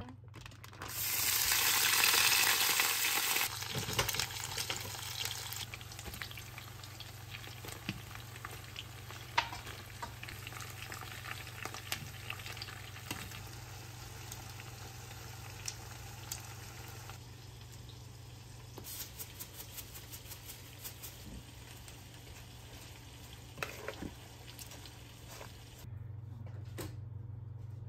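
Food frying in a pan. A loud burst of sizzling comes about a second in and settles into a steady crackle with scattered pops, which stops abruptly near the end.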